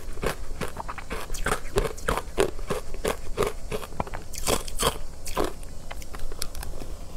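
Close-up crunching and chewing of soft, powdery ice coated in matcha green tea powder: a steady run of crisp crunches, two or three a second, with louder crunches a little past halfway as a new spoonful is bitten into.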